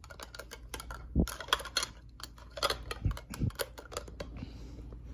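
Irregular small plastic clicks and taps as a speedcube is handled and fitted into its translucent orange plastic case.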